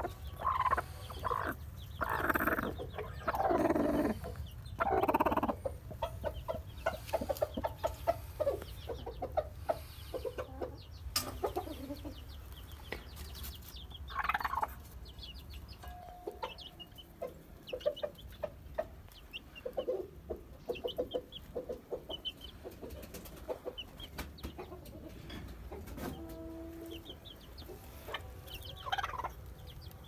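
Broody hen on her nest of eggs clucking: several loud, drawn-out calls in the first few seconds while a hand reaches under her, then softer short clucks repeated on and off.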